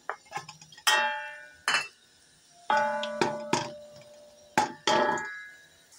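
A steel bowl and a wooden spoon knocking against an aluminium cooking pot as sliced onions are tipped into oil and stirred. There are about eight sharp knocks, each with a short metallic ring.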